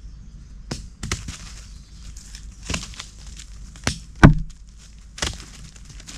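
Dry leaf litter crunching under lemurs bounding over the forest floor, in a handful of sharp, irregular crackles. A heavier thump comes a little after four seconds, as the animals reach the spot.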